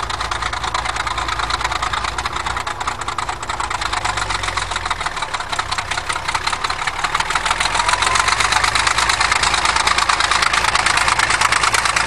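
Crawler bulldozer's engine running with a rapid, steady firing clatter as the machine drives through snow. It grows louder about eight seconds in as the dozer comes closer.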